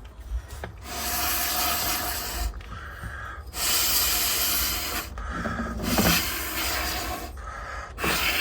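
A sprayer hissing in four bursts of about one and a half to two seconds each, cleaning out a boiler's condensing heat exchanger.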